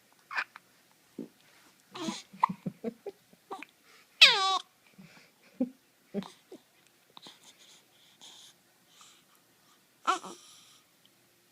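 A one-month-old with the hiccups: a string of short hiccup sounds and breaths, with a loud cry falling in pitch about four seconds in and a shorter cry near the end.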